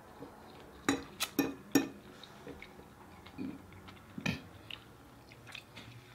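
Metal fork clinking against a plate, four quick taps about a second in and another a little past four seconds, with smaller clicks in between. This fork-on-plate tapping is the eater's pet peeve.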